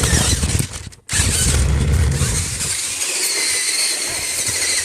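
Remote-control monster truck's electric motor and gears whining as it drives, with a low rumble over the first half. The sound cuts out for a moment about a second in.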